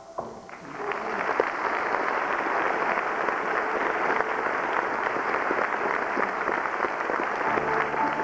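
Theatre audience applauding, a dense and steady clapping that swells in about a second in and holds. Near the end, music starts up again under the clapping.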